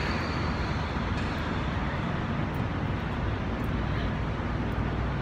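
Steady low mechanical rumble filling a large underground tunnel, even in level with no distinct events.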